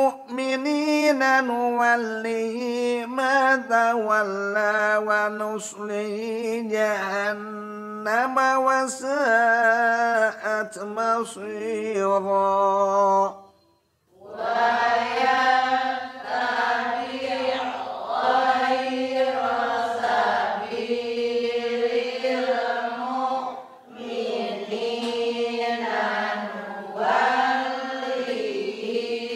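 A man's voice reciting Arabic verses of the Quran in a melodic chanted style, with long held and ornamented notes. There is a short break about halfway through, then the recitation goes on.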